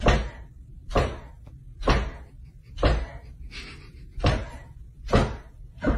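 A pet's tail thumping on a wooden floor, about once a second.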